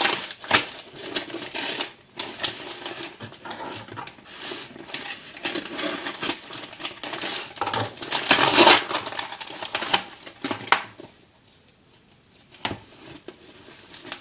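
Parcel packaging being handled and pulled open by hand: irregular rustling and crinkling with sharp clicks and scrapes, dying down briefly near the end.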